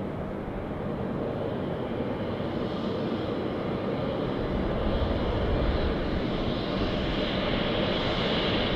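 Embraer E-Jet's GE CF34 turbofan engines running at taxi: a steady low jet rumble with a high whine that builds and grows louder over the second half.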